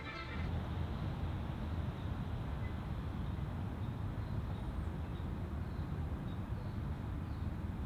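Walt Disney World Mark VI monorail train rolling along its concrete beam: a steady low rumble, with a few faint bird chirps above it.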